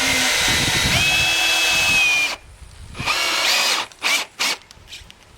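Cordless drill motor whining in bursts: one long run that steps up in pitch about a second in and stops after about two seconds, then a shorter run and a couple of quick blips. It is typical of a drill spinning a hook to twist tie wire around rebar.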